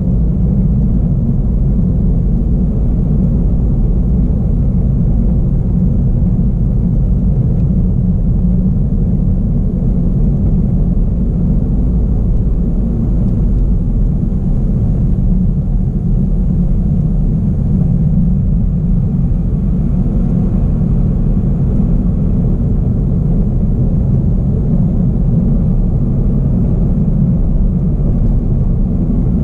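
Steady low rumble of a car driving on asphalt, its tyre and engine noise heard from inside the cabin.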